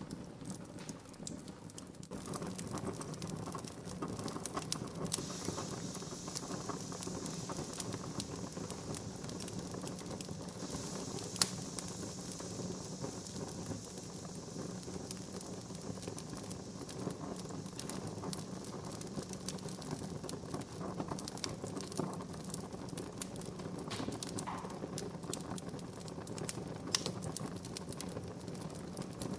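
Wood fire burning in a fireplace, crackling and popping with frequent irregular small cracks and one loud pop about eleven seconds in, over a soft hiss that stands out for several seconds in the first half.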